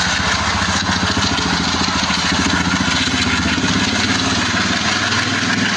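Indian Railways ALCO-type diesel locomotive engines working hard as they pull a passenger train away, their rapid exhaust beats chugging steadily under a continuous low engine drone.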